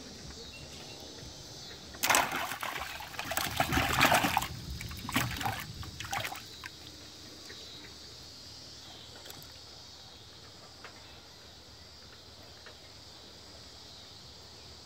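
Water splashing and sloshing in a bucket as a caught bluegill goes into it, in several bursts over about four seconds, then only a faint steady hiss.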